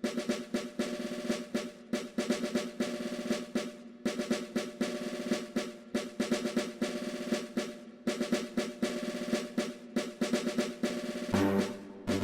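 Background music with a steady drum beat, snare-drum rolls over held chords.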